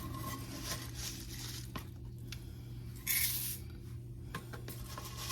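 Dry old-fashioned oats being handled for measuring: a brief rustle a little after three seconds in and a few light clicks, over a low steady hum.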